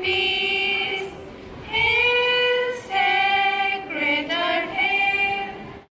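A group of schoolgirls singing a song in unison, with long held notes and a short break about a second in.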